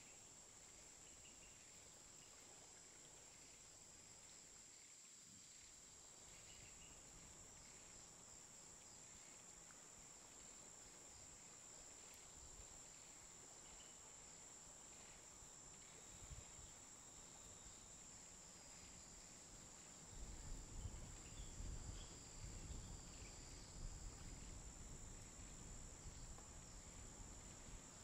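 Faint, steady high-pitched chorus of insects, with a low rumble joining in about two-thirds of the way through.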